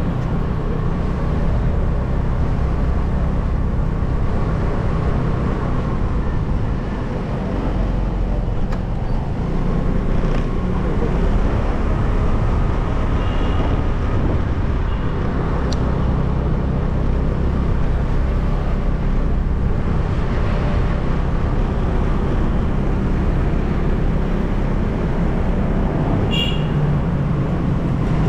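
Steady motor-vehicle noise: a continuous low engine and road rumble, with a brief high chirp near the end.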